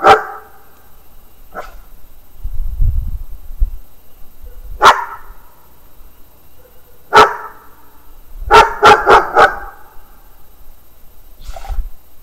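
A dog barking: single sharp barks a few seconds apart, a quick run of four barks about eight and a half seconds in, and a couple of fainter barks. A brief low rumble comes about three seconds in.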